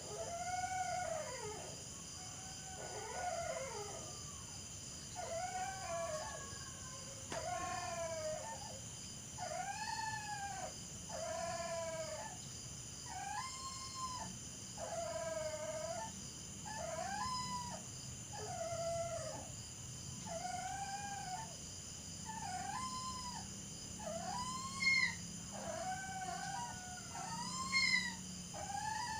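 Dog howling in a long run of short, wailing cries, about one a second, each rising and then falling in pitch, with two sharper, higher cries near the end. A steady high-pitched whine runs underneath.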